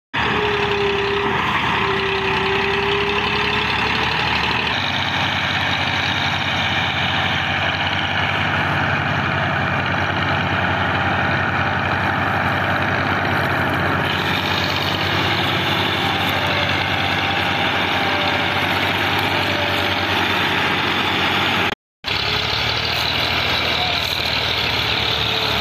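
Diesel farm tractor engines running steadily, dropping out for an instant near the end.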